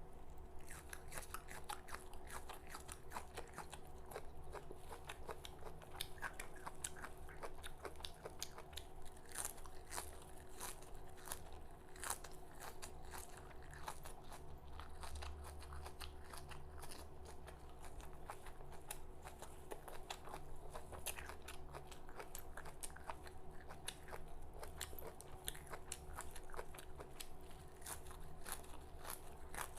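A person biting and chewing raw red amaranth leaves close to the microphone: a continuous run of small crisp crunches and clicks, over a faint steady hum.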